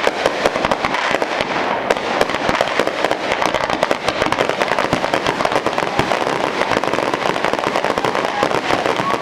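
Fireworks display: aerial shells bursting in a rapid, unbroken barrage of bangs and crackles.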